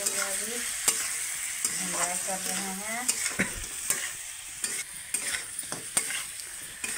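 Spiced chicken frying in oil in a metal kadai, with a steady sizzle. A ladle stirs it and clicks and scrapes against the pan at irregular moments.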